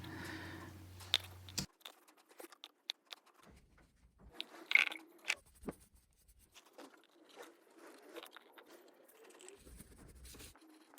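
Faint scattered clicks, small crunches and light scrapes of hand work. The loudest ticks come about a second in and near five seconds, and a faint low hum cuts off near the start.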